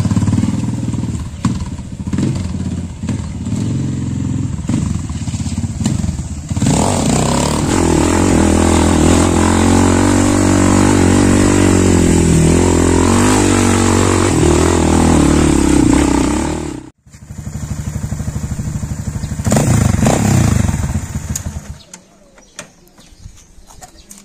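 Trail motorcycle engine running and revving. About six seconds in it climbs to a sustained high rev. It cuts off abruptly, revs loudly again for a few seconds, then drops away.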